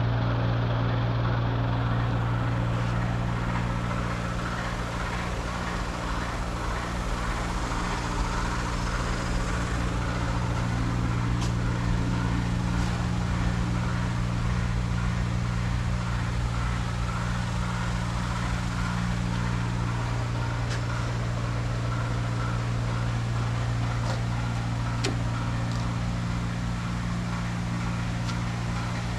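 A motor or engine running steadily with a low, even hum, and a few faint clicks over it.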